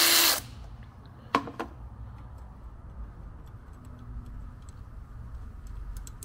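Electric ratchet whirring as it backs out a bracket bolt on an alternator, stopping just after the start. Then come two sharp metal clicks and light scattered ticking of small metal parts being handled.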